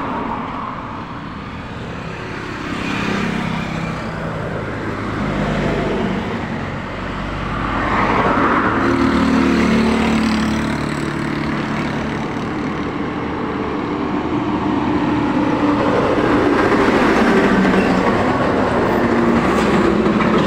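Highway traffic passing close by: cars, vans and trucks going by one after another, each engine and tyre noise swelling and fading. A heavy truck passes close near the end.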